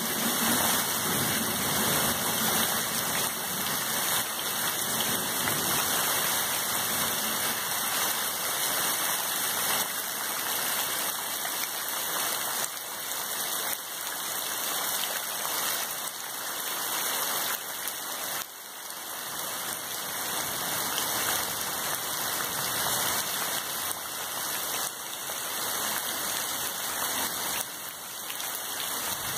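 Heavy rain falling steadily, an even, dense hiss.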